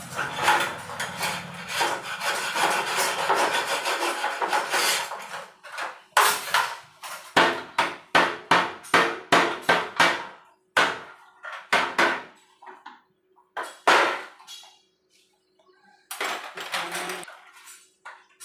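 Hand work on gas stove parts: about five seconds of rubbing and scraping, then a run of sharp knocks and taps about one a second, thinning out near the end.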